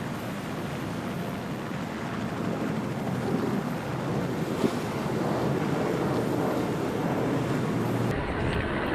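Wind buffeting the microphone over the rush of water from racing yachts under sail. A little before the end the sound cuts abruptly to a deeper, steadier rumble.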